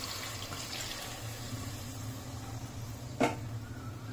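Water being poured into a cooking pot of chicken and masala, a steady pouring rush, with a single sharp knock about three seconds in.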